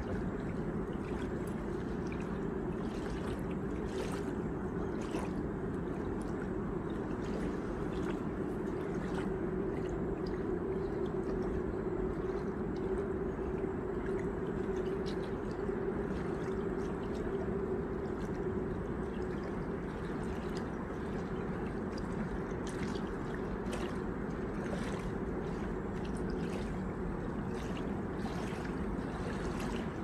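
River water lapping at the bank: a steady low wash with faint small splashes and ticks scattered through it.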